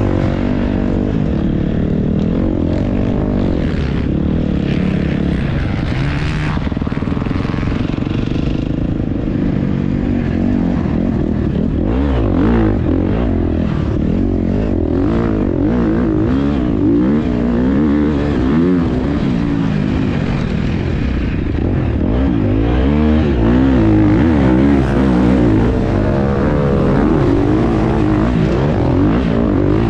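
Motocross bike engine being ridden hard, revving up and dropping back over and over as the rider accelerates, shifts and brakes around the track. The engine is heard from on board, with wind noise over it.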